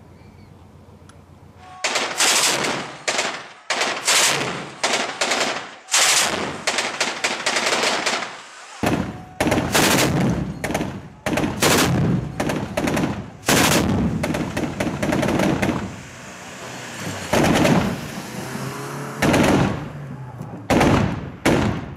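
Automatic gunfire in repeated short bursts and single shots, starting about two seconds in and going on throughout.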